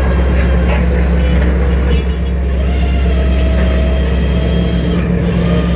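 Fishing trawler's engine and deck machinery running with a steady low hum, with a few faint ticks and knocks on deck.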